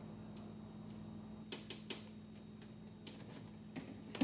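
Light clicks and taps of plastic cheese packages being handled and set into a refrigerator drawer, three quick ones about a second and a half in and another near the end, over a steady low hum.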